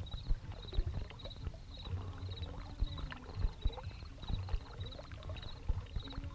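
Small waves lapping and knocking against a fishing boat's hull in irregular low thumps, with a high chirping repeating steadily in the background.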